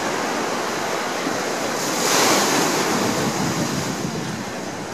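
Ocean surf breaking on a sandy beach: a steady wash of waves that swells as a wave breaks about two seconds in, then eases off.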